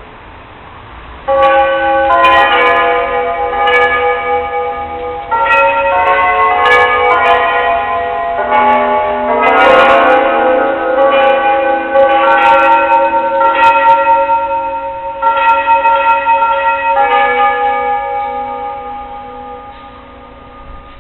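Bells ringing: several bells struck over and over in overlapping succession, so their ringing tones pile up. The peal comes in strongly about a second in and dies away toward the end.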